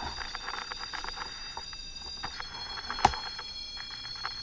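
Faint, steady high-pitched electronic whine made of several tones that shift in pitch a little after two seconds in, over scattered faint crackling clicks, with one sharp click about three seconds in.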